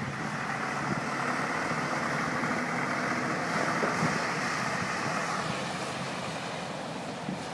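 Steady rushing noise from a street flooded with steaming water, easing somewhat about five seconds in.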